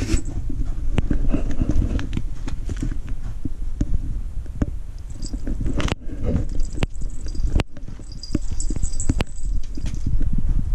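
Handling noise from a body-worn GoPro action camera as its wearer moves about: a low rumble with irregular knocks, sharp clicks and footsteps.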